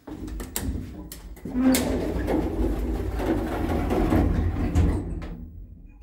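A few sharp clicks of a lift car's floor button being pressed, then the lift's automatic sliding car doors running shut with a rumbling rattle that tapers off about five seconds in.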